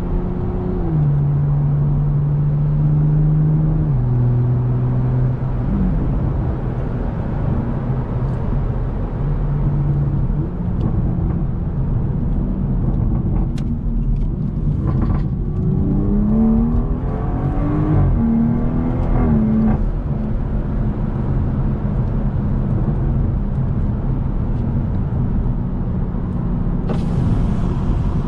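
BMW M140i's 3.0-litre turbocharged inline-six running under way. Its note drops in steps in the first few seconds, then climbs about 16 seconds in and falls back near 20 seconds.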